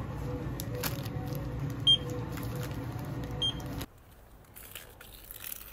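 Steady low hum with two short electronic beeps about a second and a half apart. About four seconds in, the hum cuts off suddenly, leaving faint rustling and clicks.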